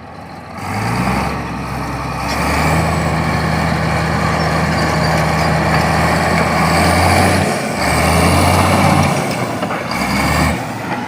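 Heavy diesel engine running, coming up about half a second in, with its speed shifting a few times. A faint high whine rises and falls near the middle.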